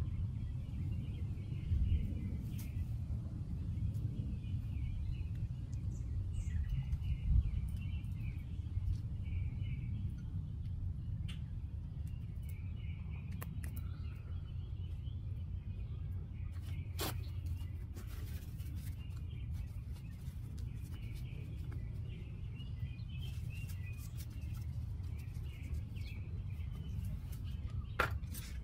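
Birds chirping over a steady low outdoor rumble, with a few sharp clicks now and then, one around the middle and one near the end.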